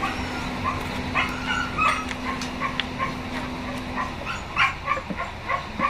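A dog yipping and barking in short repeated bursts, mixed with clinks of steel transmission gears and shafts being handled. A low steady hum stops about two-thirds of the way through.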